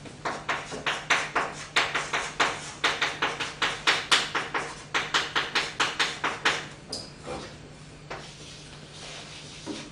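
Chalk writing on a blackboard as kanji characters are written stroke by stroke: quick taps and scrapes, about four or five a second, for some six seconds. Near the end it tails off to a few faint taps.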